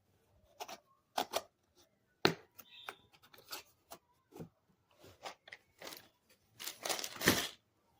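A tool kit's case and packaging being handled and opened: a series of sharp clicks and knocks, then a longer rustle near the end.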